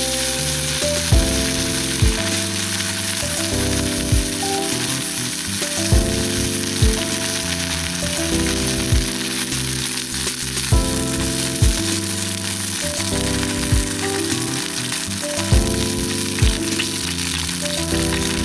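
Chicken and offal sizzling steadily as they fry, under background music: held chords with a soft beat about once a second.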